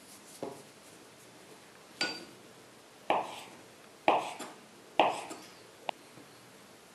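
A kitchen knife cutting a rolled log of pelmeni dough into pieces on a wooden board, each cut a sharp knock of the blade on the board, four of them about a second apart after a fainter one.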